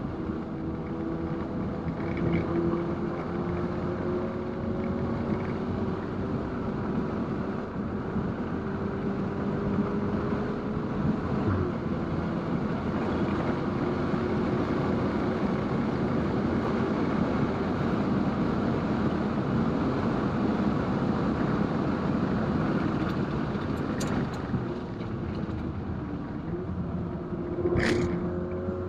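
Stage 2-tuned 2019 VW Golf R's turbocharged four-cylinder engine running on track under heavy road and wind noise. The engine note climbs slowly, drops at a gear change about 11 seconds in, and drops again later. A sharp click comes near the end.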